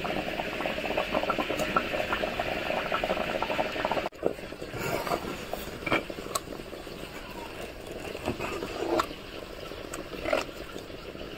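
A pot of sambar bubbling on the boil, a dense crackle of small pops. About four seconds in it drops abruptly to a quieter bubbling, broken by a few light knocks.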